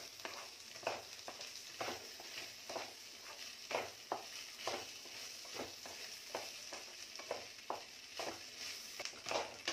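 Spatula stirring and scraping rice and chicken masala around a pan, in short strokes about once a second, over a light steady sizzle.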